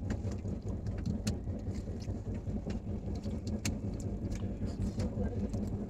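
Steady low rumble of a moving passenger train, heard from inside the coach, with scattered light clicks of plastic spoons on foil food trays.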